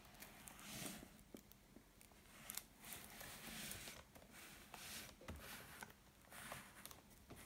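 Faint rustling and scraping of fingers handling a cardboard perfume box as it is turned on a table: a string of soft swishes with a few light clicks.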